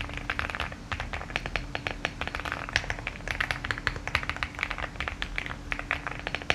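Typing on a mechanical keyboard fitted with newly installed Cherry-profile keycaps: a steady run of bright key clacks, several a second.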